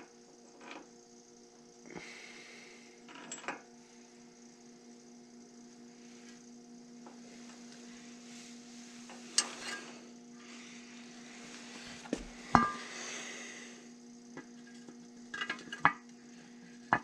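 Steel brake parts clinking and knocking as a brake backing plate and its hardware are handled and fitted onto a truck's front steering knuckle, with a sharper clank about two-thirds of the way through. A freezer hums steadily underneath.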